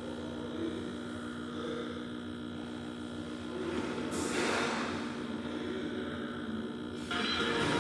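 Television sound: a steady humming tone until almost four seconds in, then a swell of hiss-like noise, and a louder, brighter noisy passage near the end.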